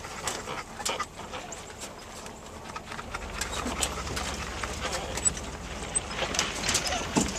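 Ranch truck riding slowly over rough ground: scattered clicks and rattles, with a low rumble coming in about three seconds in.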